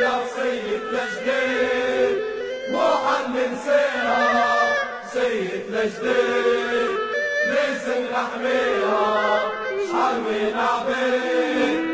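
Background music: a choir of voices chanting a song melody, in a passage with no clear words.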